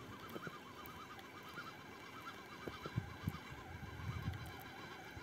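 A faint chorus of frogs calling, a continuous stream of short warbling croaks, with a couple of low knocks about three seconds in.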